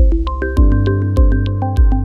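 Calm, minimal electronic background music: a deep synth pulse about every 0.6 seconds under light ticking percussion and held synth notes.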